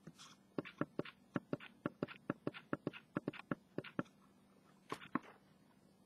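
Camera mount clicking as the camera is turned by hand: a quick, even run of about five clicks a second for three to four seconds, then two more clicks about five seconds in.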